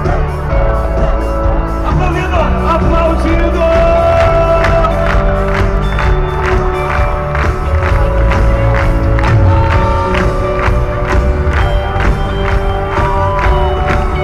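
Live worship band playing upbeat gospel music with a steady driving drum beat and sustained sung melody. A large crowd sings and cheers along underneath.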